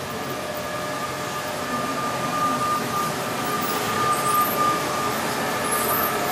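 Model electric train running on the layout's track, its rolling rumble with a thin steady whine slowly growing louder as it approaches.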